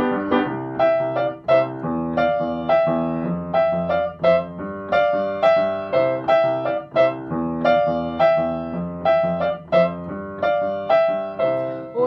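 Upright piano played solo in a steady, even run of chords, an instrumental interlude with no singing.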